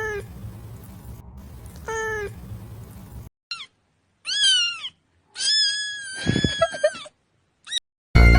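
A cat meowing several times: short calls at first, then higher, falling meows and one longer meow near the end.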